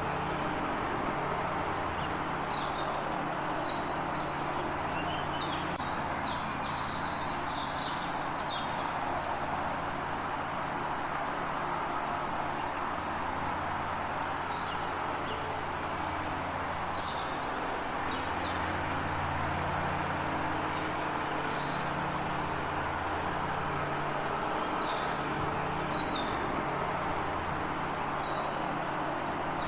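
Small birds chirping in short, scattered calls, thickest in the first ten seconds, over a steady low rumble and hiss.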